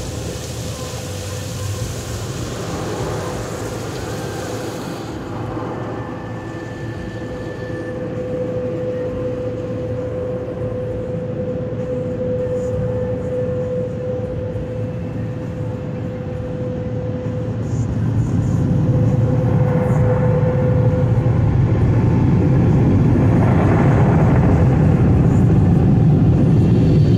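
Automatic car wash machinery heard from inside the car: a hiss for the first few seconds, then a steady hum. A louder low roar builds from about two-thirds of the way through, typical of the wash's air-dryer blowers.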